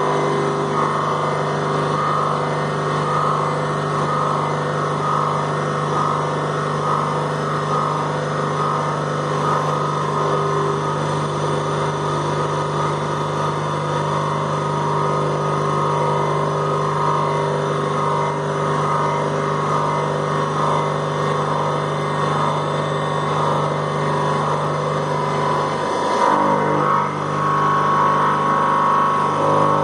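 CNC machining centre milling the journals of a billet crankshaft with an end mill while the rotary axis turns the crank: a steady spindle hum with a wavering cutting whir over it. About 26 seconds in the sound briefly breaks off and changes, then resumes.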